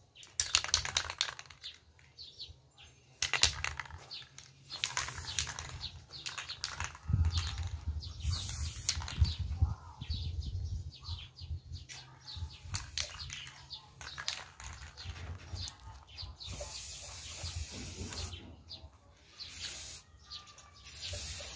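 Aerosol spray-paint can being shaken, its mixing ball rattling in quick bursts, then several short hisses of spray from the nozzle in the last few seconds.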